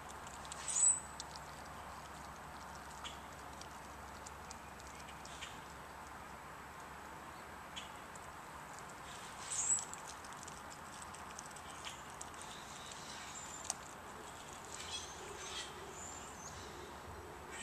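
A greyhound eating raw chicken bits: soft scattered chewing clicks and mouth noises, with two louder sharp sounds, one about a second in and one near the middle.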